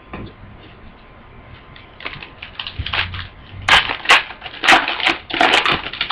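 Trading-card pack wrapper being torn open and crinkled by hand. It starts about two seconds in as a run of quick crackling rustles and gets louder and denser near the end.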